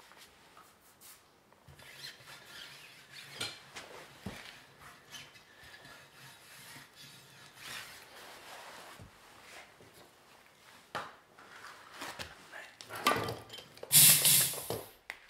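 Irregular rubbing and scraping of hand-mounting a stiff-sidewalled tire onto its rim, with a few knocks, then a loud hiss about a second long near the end.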